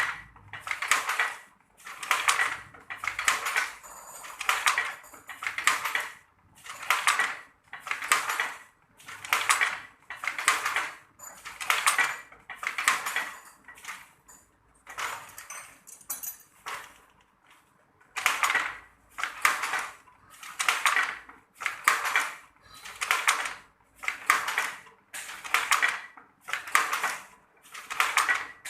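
Traditional hand-operated weaving loom working at a steady pace, clattering about once a second with each weaving stroke, with a short break a little past the middle.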